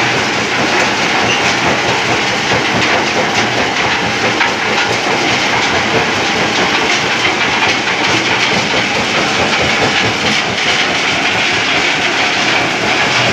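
Rock-crushing plant running: crushers, conveyors and screens give a loud, steady, dense rattle and grind as stone is broken into sand, over a low machine hum.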